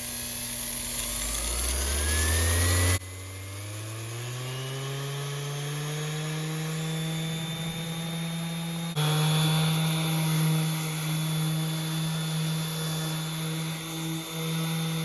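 Bosch ROS20VSC 5-inch random orbital sander running, its motor pitch rising steadily as the variable speed is turned up from slow, then holding at a high speed. The sound changes abruptly twice, about three seconds in and again about nine seconds in.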